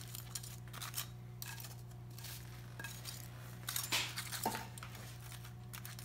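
Metal kitchen tongs clicking and clinking against a frying pan and plate as fried fish fillets are set into the tomato sauce, with a louder clatter about four seconds in. A steady low hum runs underneath.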